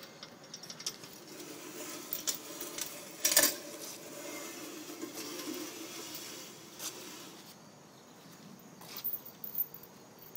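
Heavy metal chains rattling and scraping along blacktop as they are dragged, in scattered small clinks, with one sharper clank about three seconds in.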